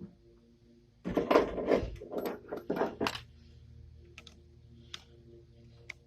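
Small metal parts of a jet ski starter motor clinking and rattling as they are worked out with a small screwdriver: a dense run of clatter for about two seconds, then a few single clicks.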